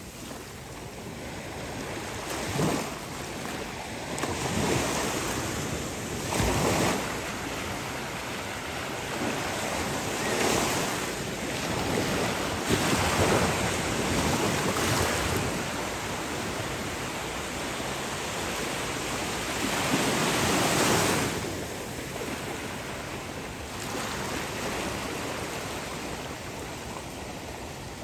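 Small ocean waves breaking and washing in, the surf swelling and easing every few seconds.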